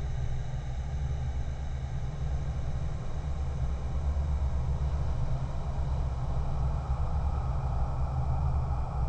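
Metro train approaching on its track: a steady low rumble with a rushing noise over it that grows a little louder in the second half.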